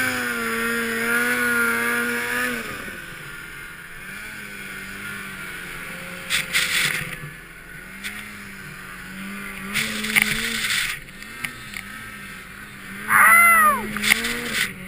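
Ski-Doo Summit XP snowmobile's two-stroke engine running at high revs, then dropping back after about two and a half seconds to a lower, wavering pitch with short bursts of throttle. About thirteen seconds in comes a loud rush of noise with quick rising-and-falling rev blips as the sled plows into deep powder.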